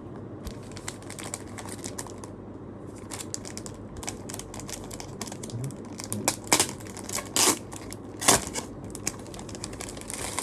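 Packaging and small paper and plastic merch items being handled: rustling and crinkling with many small clicks and taps, and a few louder crinkles between about six and eight and a half seconds in.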